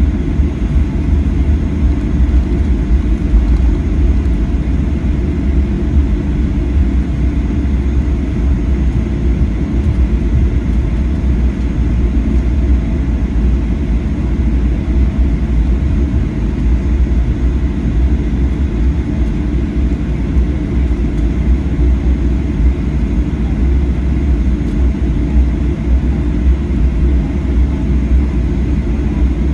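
Steady low rumble and hum inside the cabin of a Boeing 737-800 parked at the gate, with a faint high steady whine over it and no changes throughout.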